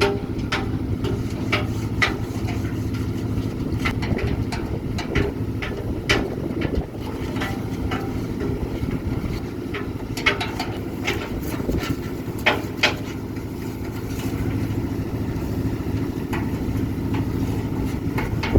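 A machine engine running steadily, with irregular sharp knocks and clinks from work on a construction site.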